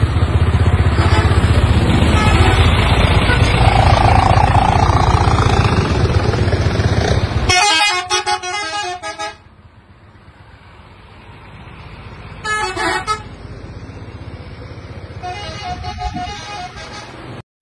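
Tour buses passing close, their engines running loud with road noise, then a multi-tone 'telolet' bus horn playing a short melody about halfway through. Two shorter, fainter horn phrases follow near the end.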